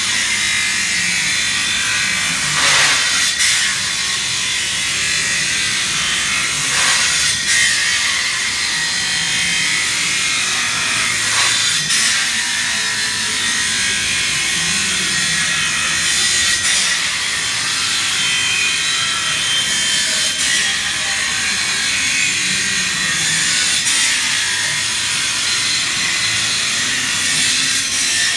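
Circular saw with an abrasive blade cutting through steel street grating: a steady, high-pitched grinding, with short louder surges every few seconds.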